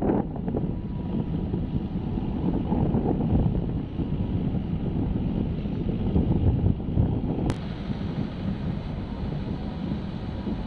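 Wind buffeting the microphone over a low, steady rumble, with a single sharp click about seven and a half seconds in.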